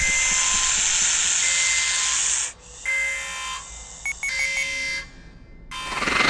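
Spaceship alarm sound effect: an alarm tone repeating in pulses about a second long, with a loud hiss over the first two and a half seconds. A few short high beeps come about four seconds in, and a rising whoosh of noise near the end.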